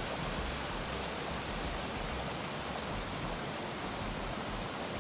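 Small mountain creek rushing steadily, water spilling past a fallen log and over rocks.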